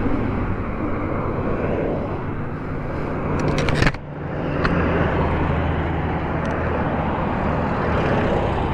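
Wind buffeting and road noise on the rider's microphone while riding a Zero DSR-X electric motorcycle at speed. A few sharp clicks and a brief drop in the noise come just before four seconds in.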